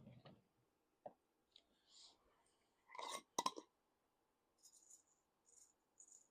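Someone rummaging in a drawer of knitting accessories for a pen. A few small clicks, two louder knocks about three seconds in, then short bursts of light rattling.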